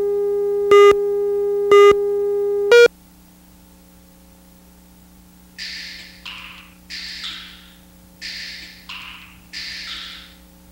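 Video countdown leader: a steady test tone with three short beeps about a second apart, the last one higher, cutting off just before three seconds in. After a low hum, from about five and a half seconds, paired hissy swishes repeat at an even pace as the music starts.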